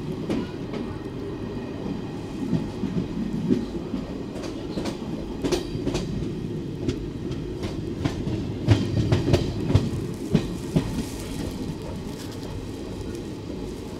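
Passenger train running at speed: the steady rumble of coach wheels on the rails, with groups of sharp clickety-clack as the wheels pass over the track. The loudest cluster of clacks comes about two-thirds of the way through.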